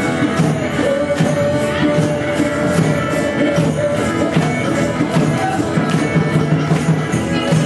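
Live group jam-session music: an electric keyboard with hand drums and percussion keeping a steady beat.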